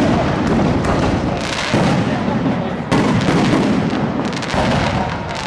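Aerial firework shells bursting in a fireworks display: three heavy booms, at the start, just under two seconds in and about three seconds in. Each is followed by a long rumbling echo and crackle.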